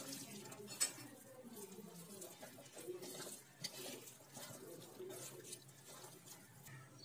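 A hand squeezing and tossing wet pakora batter of sliced potato and gram flour in a steel bowl: faint squelching and rustling, with a sharper click about a second in.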